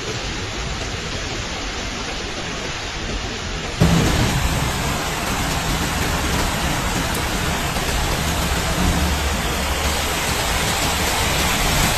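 Heavy rain falling steadily. About four seconds in, a cut to louder, heavier rain with a low rumble under it.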